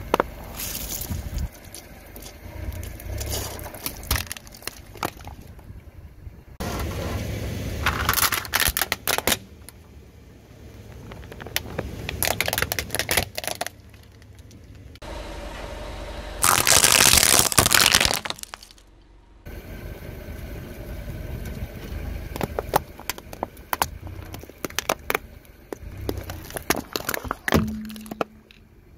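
A car tyre rolling over and crushing a series of objects on asphalt: a plastic tub of water beads, a plastic toy jeep and slime-filled balloons. It gives crunching and cracking of plastic, with the loudest run of cracking a little past the middle, and the sound changes abruptly from one object to the next.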